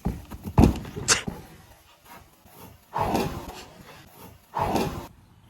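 Handling noise: a few sharp knocks in the first second, then two separate rubbing scrapes about three and four and a half seconds in.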